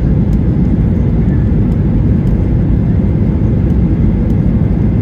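Steady low rumble of a jet airliner's engines and rushing air, heard inside the cabin.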